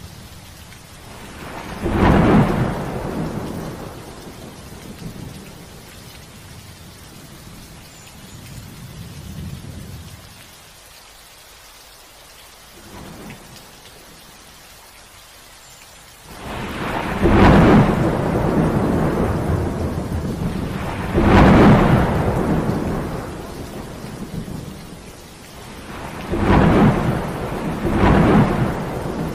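Thunderstorm: steady rain with repeated thunder. A thunderclap comes about two seconds in, then a quieter lull. The second half brings long, loud rolls of thunder and several sharp cracks near the end.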